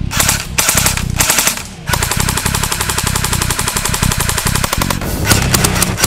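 Cyma AKS-74U airsoft electric gun (AEG) firing on full auto: a short burst, then one long sustained burst of about three seconds, then more short bursts near the end, over background music.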